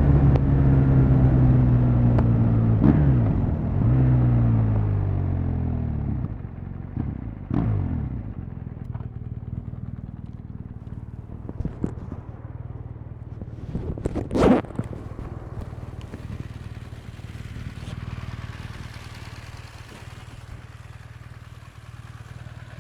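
BMW R1200 GS LC's boxer twin on its stock exhaust, revved with a few throttle blips over the first several seconds, then running steady and much quieter for the rest. A single short sharp click or knock comes about two-thirds of the way through.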